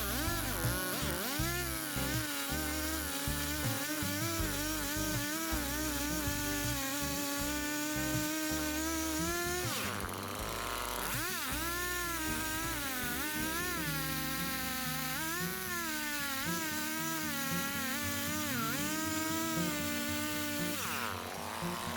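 Husqvarna 120e Mark II two-stroke chainsaw cutting cedar, its engine pitch rising and falling as the chain bogs in the wood and picks up again. The engine drops off briefly about ten seconds in and again near the end before revving back up.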